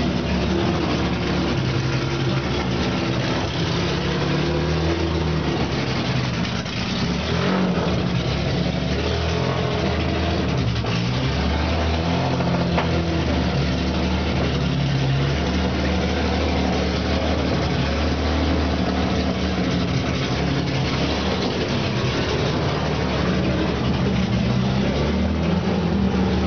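Vintage Aston Martin racing car's straight-six engine idling, its pitch stepping up and down with blips of the throttle.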